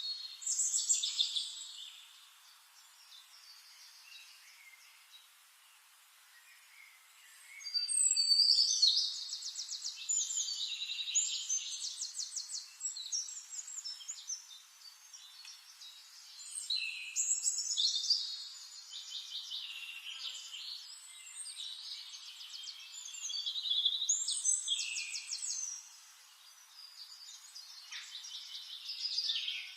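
Songbirds singing: loud bursts of song with rapid trills and falling notes, coming back every several seconds, with quieter gaps between phrases.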